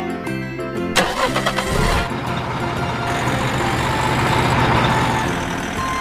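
Background music with a vehicle engine sound that starts about two seconds in, swells and dies away near the end, after a sharp click about a second in.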